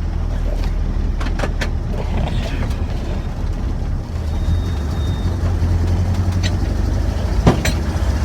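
Ranger pickup's engine and glass-pack exhaust running with a steady low rumble as the truck creeps along, with a few sharp knocks and rattles, the loudest near the end.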